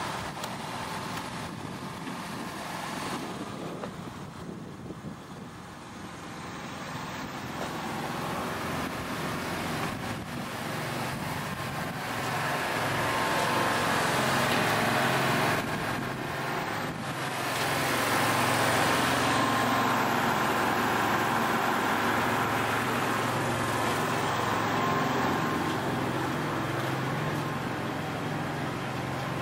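An engine running steadily with a low hum, growing louder about halfway through.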